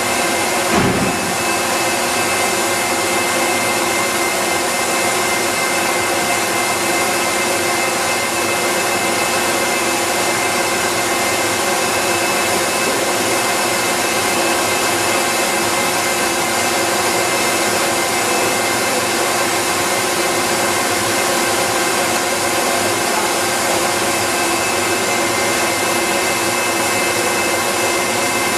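Steady drone of factory machinery, electric motors running with a constant whir and a steady high tone. A single dull knock comes about a second in.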